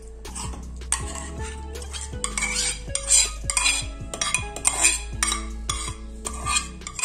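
Steel spoon scraping and clinking against a stainless steel bowl as soaked sago pearls are scooped out into a smaller steel bowl, in repeated strokes that grow busier and louder after about two seconds. Background music plays underneath.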